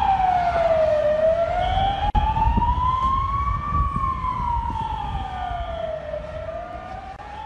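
Emergency vehicle siren wailing in slow rising and falling sweeps, each rise and fall taking about five seconds, over a low rumble. There is a brief dropout about two seconds in, and the sound fades out toward the end.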